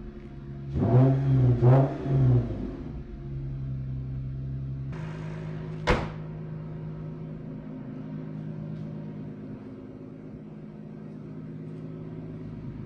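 2017 Lexus IS 350's 3.5-litre V6 engine running on freshly fitted spark plugs: revved twice in quick succession, then settling to a steady idle. There is a single sharp click about six seconds in.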